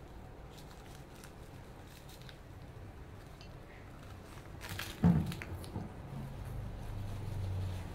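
Eating sounds: a short crackling, crunching burst with a soft thump about five seconds in as a nori-wrapped onigiri is bitten into. A low rumble builds near the end.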